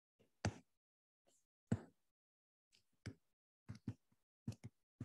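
Faint, irregular taps and brief scrapes of a stylus on a drawing tablet as words are handwritten: about ten short strokes with silence between.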